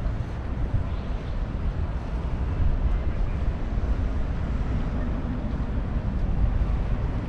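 Busy city street ambience: a steady low rumble of traffic with faint voices mixed in.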